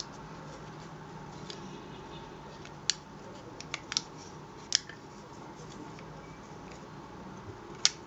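About five sharp clicks from a small plastic motion-activated LED light and its magnetic metal mount plate being handled, the loudest about three seconds in and again near the end.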